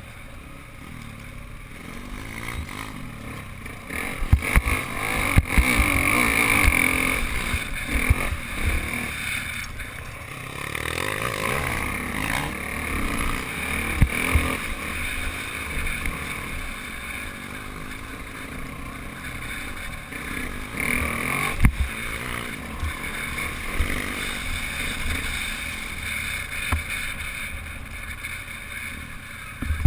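Pit bike engine running and revving up and down while riding a dirt trail, loudest for a few seconds about four seconds in. Several sharp knocks are heard along the way.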